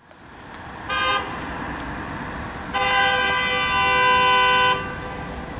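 Vehicle horn honking: a short toot about a second in, then one long steady honk of about two seconds, over passing traffic noise.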